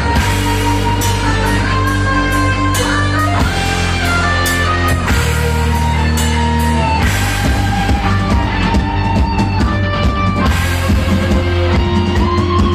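Heavy metal band playing live: electric guitars carry a melody of held notes that step in pitch, over bass and a drum kit.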